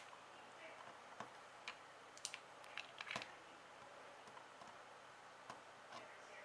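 Faint, scattered small clicks and ticks of a precision screwdriver working on the screws and standoff inside an iPhone 4S, in near silence.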